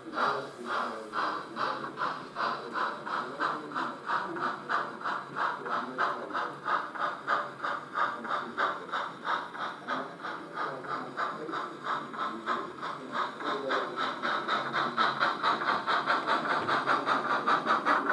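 Model steam locomotive's sound decoder playing steady exhaust chuffs, about three beats a second, growing louder in the last few seconds.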